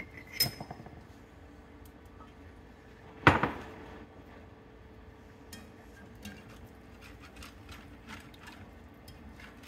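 A sharp metal clank a little over three seconds in. From about halfway through, a wire whisk clicks and scrapes irregularly against a cast-iron skillet while whisking gravy. A faint steady hum runs underneath.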